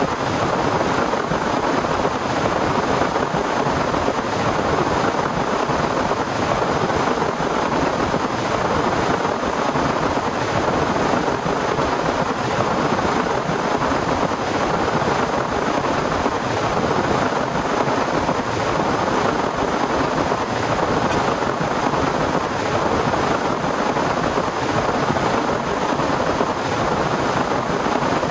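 Torrential rain pouring down steadily, an even unbroken rush with no thunderclaps.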